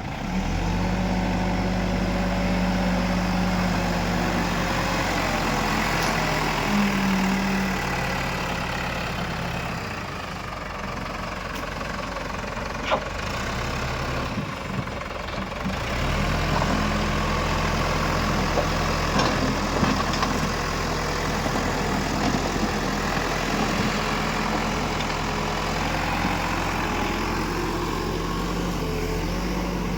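Diesel engine of a backhoe loader at work, running steadily, easing off about eight seconds in and picking back up about halfway through. A few sharp clacks are heard along the way.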